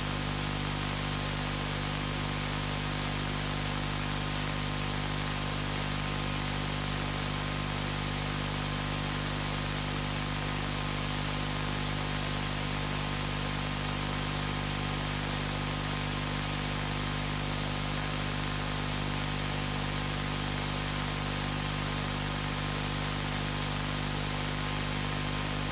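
Steady static hiss with a constant low electrical hum, unchanging throughout, with no other sound standing out.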